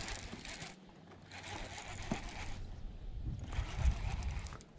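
Fishing reel being cranked in spells during a retrieve, a rough whirring that comes and goes, with a low rumble near the end.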